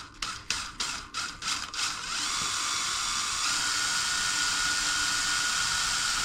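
DeWalt power drill with a small 2.5 mm bit drilling a stop hole into a cracked cymbal. It gives a run of short bursts, about three a second, then from about two seconds in runs steadily with a high whine and a thin squeal as the bit cuts into the metal. The owner calls the bit not very sharp.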